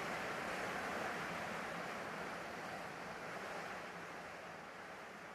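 Open-sea waves washing with wind noise, a steady hiss that slowly fades.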